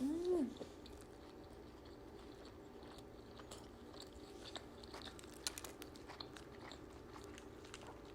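A person chewing a mouthful of toasted steak-and-cheese sub close to the microphone: soft, wet chewing clicks and crackles. A short hummed "mm" comes right at the start.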